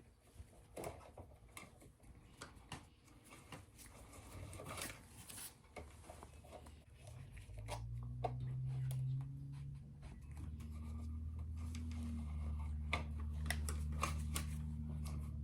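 Light clicks, taps and rattles of hand tools and burner parts being handled while an oil-burner ignition transformer is removed. A low steady hum comes in about halfway through and grows louder.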